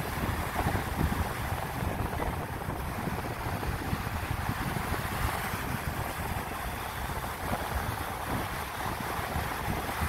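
Gulf of Mexico surf: small waves breaking and washing up the sand in a steady rush of foam. Wind buffets the microphone underneath with a low, fitful rumble.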